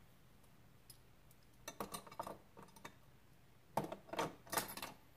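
Light clicks and clinks of small hard objects being handled: a few scattered taps, then a busier run of clinking near the end.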